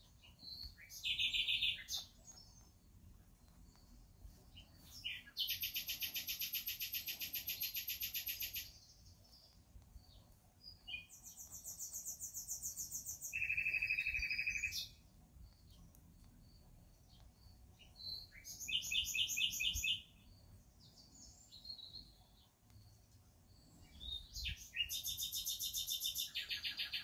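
A songbird singing in a series of rapid trilled phrases, each one to three seconds long, with pauses of a few seconds between them; one phrase is a lower, purer trill.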